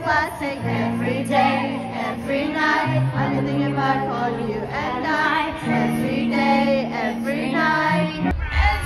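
Live pop concert music over a large outdoor PA, recorded from the audience: a female voice singing over sustained synth chords, with heavy bass and drums coming in near the end.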